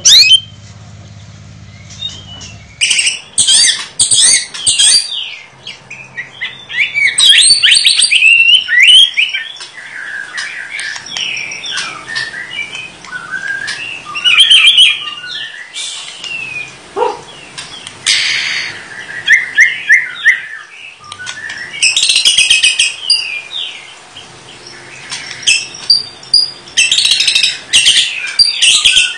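White-rumped shama (murai batu) singing a long, varied song of quick whistles, glides, trills and harsh chattering notes in loud bursts with short pauses, starting about three seconds in after a faint low hum. The song is packed with imitations of other birds' calls (isian), the mimicry that shama keepers train for.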